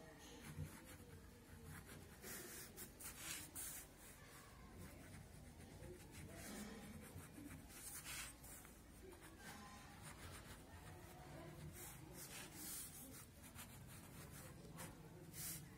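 Montex Hi-Fi ballpoint pen writing on paper: faint scratching of the tip across the sheet in short, irregular strokes.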